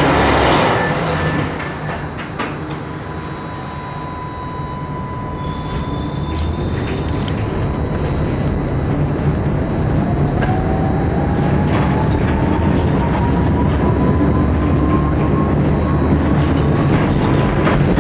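Electric tram pulling away from a stop and picking up speed, heard from inside the car: the motor whine rises slowly in pitch and the running noise of wheels on rails grows steadily louder, with scattered clicks.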